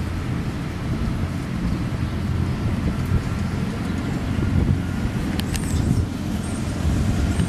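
Steady low outdoor rumble, with a couple of faint sharp clicks about five and a half seconds in.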